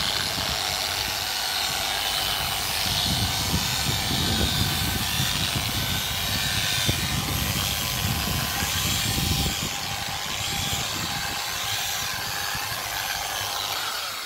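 Dual-action polisher with a soft foam finishing pad running steadily at its lowest speed, spreading glaze over a car door panel: a continuous motor whirr with a low rumble.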